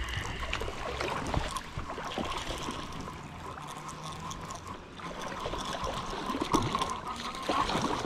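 Shallow river water lapping and trickling over a pebbly edge, with scattered small splashes and a few sharper sounds near the end.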